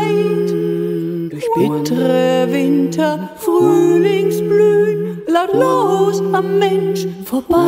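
Music: a voice singing a slow melody over a held low drone note, in phrases a couple of seconds long with short breaks between them.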